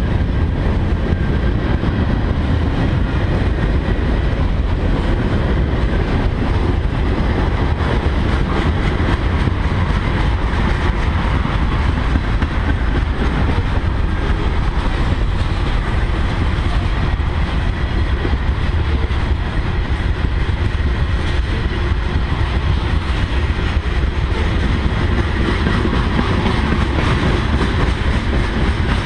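Freight train cars (covered hoppers, gondolas and tank cars) rolling past at close range: steel wheels running on the rails in a steady, loud rolling noise that is strongest in the low end.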